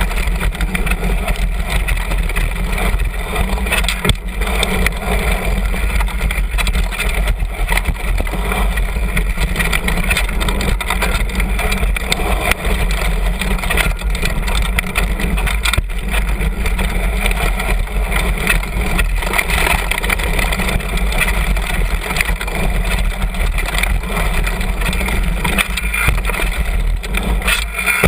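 Downhill mountain bike running fast over a rough dirt trail, heard from low on the fork: a steady rumble of wind and tyre-on-dirt noise with the bike's chatter. Sharp knocks from hits on the trail come through, the clearest about 4 and 16 seconds in.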